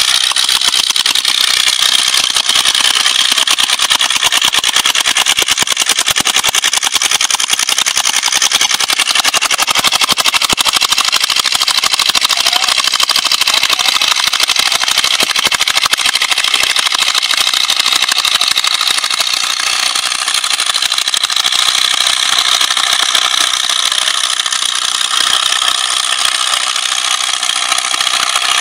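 Vintage tractor engine running steadily under load as it pulls a plough through the stubble field, the level easing slightly in the last third.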